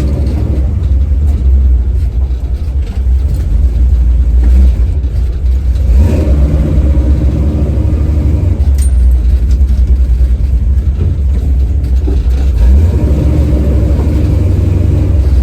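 A 1970 Chevy Nova's 383 small-block V8 running while the car is driven, a loud deep steady rumble that swells about six seconds in.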